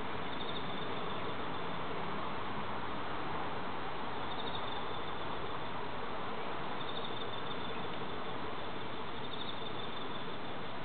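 Insects singing: four short, high, pulsed trills come about every two and a half seconds over a steady background hiss.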